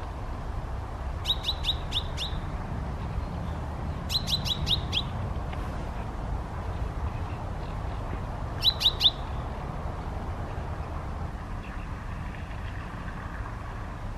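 A songbird calling in three short bursts of four or five rapid, sharp high notes: about a second in, about four seconds in, and near nine seconds. Steady low background noise runs underneath.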